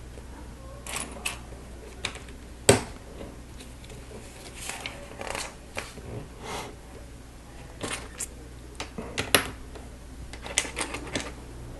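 Plastic Lego bricks clicking and snapping together as pieces are handled and pressed on, in scattered sharp clicks with softer rubbing between them; the sharpest click comes nearly three seconds in.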